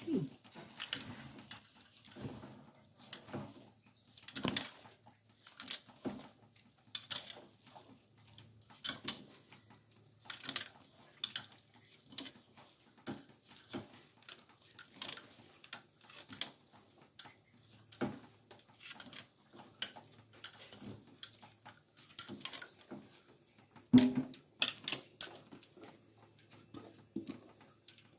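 Hands kneading and squeezing wet grated coconut in a plastic basin to press out coconut milk: an irregular run of soft squelches, splashes and sharp knocks against the plastic.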